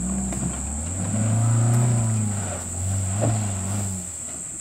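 Small 4WD SUV's engine revving up under load while driving off-road. It is loudest about two seconds in, eases, and revs again, with a single sharp knock about three seconds in, then dies back.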